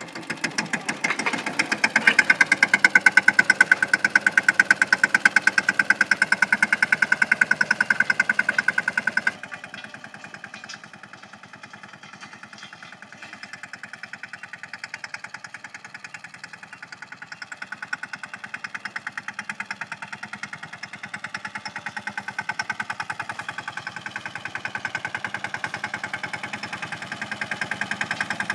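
Mahindra Yuvraj 215 NXT tractor's single-cylinder diesel engine chugging steadily as it pulls a field roller. It is loud and close at first, drops off sharply to a more distant sound about nine seconds in, then grows louder again near the end as the tractor comes back toward the listener.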